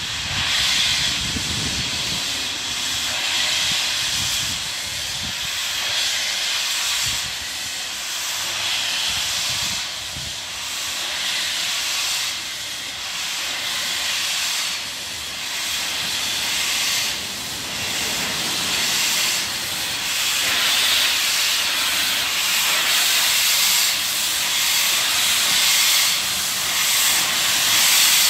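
Steam hissing from BR Standard Class 4 tank locomotive 80104 as it moves slowly forward with its cylinder drain cocks open. It is a steady, loud hiss that swells and fades every couple of seconds and grows a little louder near the end as the engine approaches.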